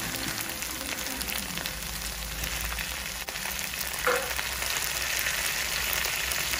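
Onions, potato cubes and whole spices sizzling in hot oil in a pan. Chopped tomatoes go in about four seconds in, and the sizzle is a little louder after that.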